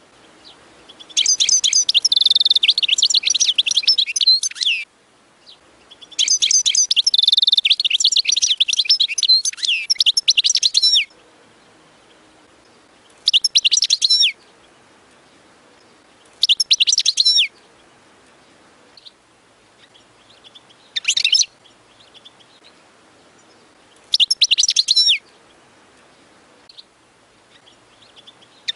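European goldfinch singing: two long bouts of rapid twittering song, then several short phrases a few seconds apart.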